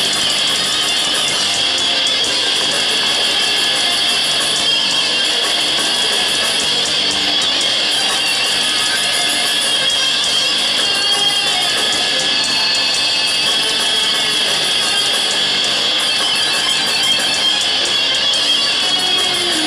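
Metal band playing live: distorted electric guitars over drums, loud and unbroken, sounding thin with little bass as heard from the audience.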